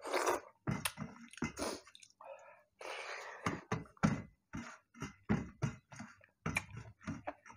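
Close-miked chewing and wet mouth smacks of a man eating a mouthful of rice and curry, settling about halfway through into a steady rhythm of roughly three smacks a second.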